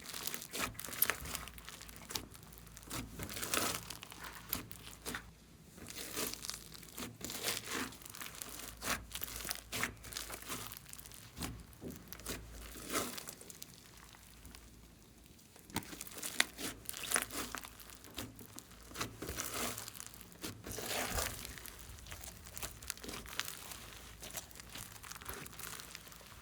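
Slime being squished and kneaded by hand, giving irregular crackles, clicks and small pops.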